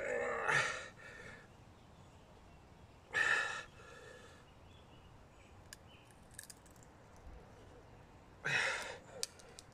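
A man's heavy, strained exhalations of effort, three of them, near the start, about three seconds in and near the end, as he levers a knife tip wedged in oak. Between the second and third come a few faint, sharp cracks of the oak fibres giving under the strain.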